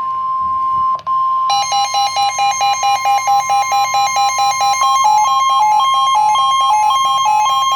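NOAA Weather Radio warning alarm: the steady 1050 Hz alert tone. About a second and a half in, a receiver's own rapid beeping alarm joins it at about four beeps a second, and later the two pitches alternate.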